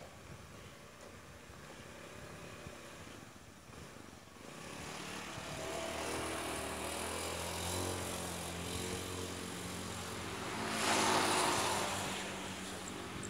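A motor engine drawing near from out of sight, its hum building from about four seconds in and loudest with a rush of noise around eleven seconds in, then easing.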